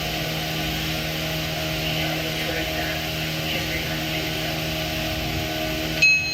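A steady mechanical drone. About six seconds in comes a short, loud, high metallic ring.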